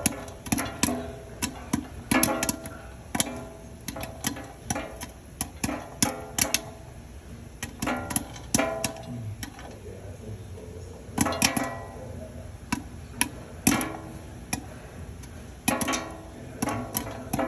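Popcorn popping: kernels bursting in irregular sharp pops, several a second in flurries, with brief lulls, some pops followed by a short ringing.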